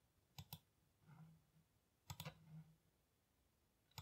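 Faint clicks from a computer's mouse and keys being worked, coming in quick pairs about two seconds apart.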